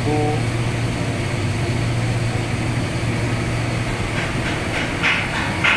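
Tugboat main marine diesel engine and its turbocharger blower running, a loud steady engine-room noise with a constant low hum. A few short, sharp bursts of noise come through near the end.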